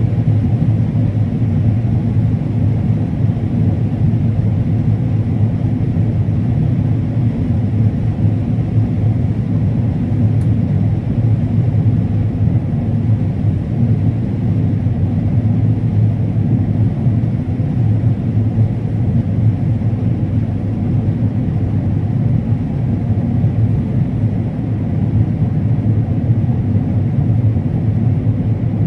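Combine harvester running steadily while harvesting corn: a constant low engine drone with a strong hum.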